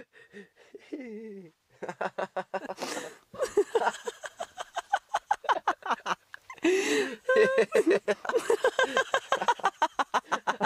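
People laughing and giggling in quick, pulsing bursts of laughter that grow louder and denser about halfway through.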